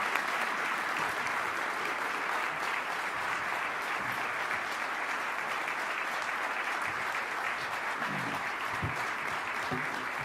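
Audience applauding steadily: many people clapping in a large room.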